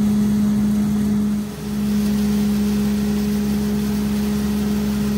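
Tractor-driven hammer mill grinder-mixer running steadily while grinding corn, a loud constant hum from the machine and engine. The level dips briefly about a second and a half in.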